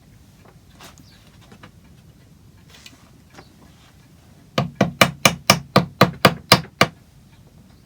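A hammer striking wood in a quick, even run of about ten blows lasting a little over two seconds, starting a little past halfway through. Before that there are only faint clicks of handling.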